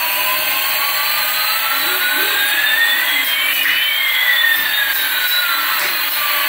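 Electronic jet-engine sound effect from a toy Airbus A380's sound chip: a steady hissing roar, with one whine rising slowly and a second whine falling from about two seconds in.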